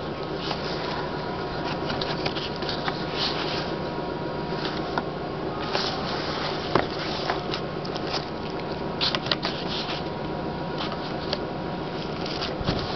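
Steady machine hum of a DEK 02i screen printer's fans, with a faint steady tone, powered up during initialization. Light clicks and rustles are scattered over it.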